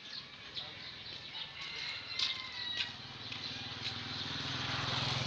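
Quiet street ambience with a few small clicks, then a small motorcycle engine drawing near in the second half, its low drone growing louder towards the end.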